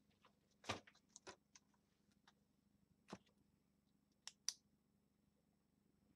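Near silence: room tone with a handful of faint, scattered clicks.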